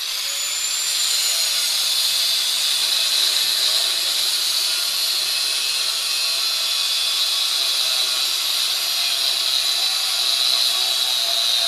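Angle grinder with a cutoff wheel winding up, then cutting steadily through a steel coil spring clamped in a vise: a continuous loud, high-pitched grinding whine.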